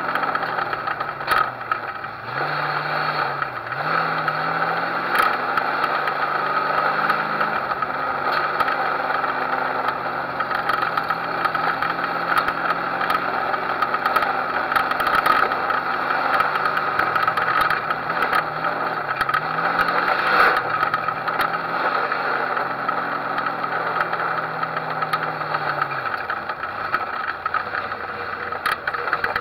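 On-board race car engine running at speed, its note rising and falling repeatedly as the throttle comes off and back on, under a steady noisy rush, with a few sharp knocks and rattles.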